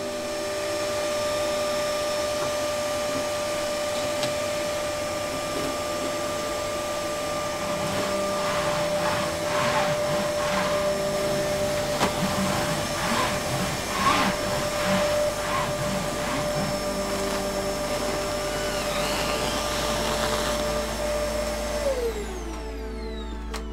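Vacuum cleaner running with a steady whine, with knocks and rattles from the cleaning head through the middle. Near the end it is switched off and the motor winds down in a falling whine.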